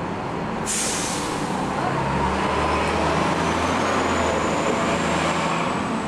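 Street traffic with a large road vehicle: a sudden hiss of air about a second in that fades away, then a steady low engine rumble with a faint, slowly rising whine.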